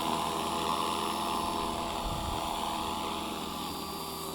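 Electric RC helicopter (Align T-Rex 450) hovering low: steady whine of its brushless motor and hum of the spinning rotor blades, getting a little quieter near the end. A short low thump comes about two seconds in.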